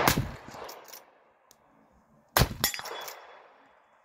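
Shots from an 1860 Henry lever-action rifle in .45 Colt: the report of one shot fades out over the first second, and a second shot goes off about two and a half seconds in. Each is followed by quick metallic clinks.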